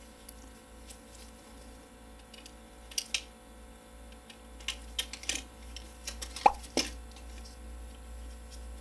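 Plastic clicks and light handling noise as a graphics-card cooling fan is fitted into its plastic fan shroud, with a few sharp clicks, the loudest two close together about two-thirds of the way in.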